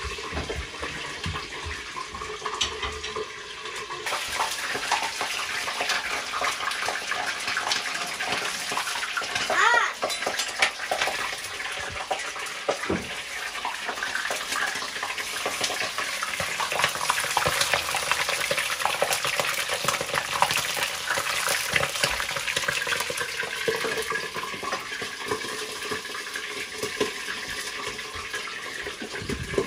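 Lamb frying in hot oil in a plov kazan: a dense, steady sizzle with fine crackling spatter.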